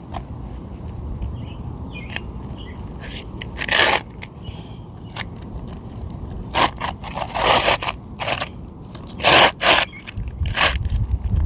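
Asphalt shingle being worked back into place on a roof, scraping and rustling against the neighbouring shingles in several short, irregular bursts over a steady low rumble.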